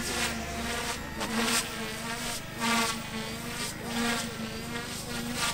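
OMP Hobby M1 micro electric 3D helicopter in flight, its rotor buzz rising and falling in repeated surges about once a second.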